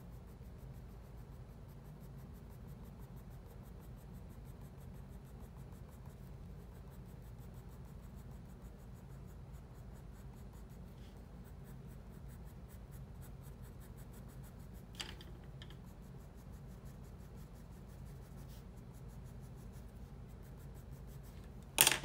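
Graphite pencil scratching faintly on paper in rapid short feathering strokes, over a steady low hum. A small click sounds about 15 seconds in.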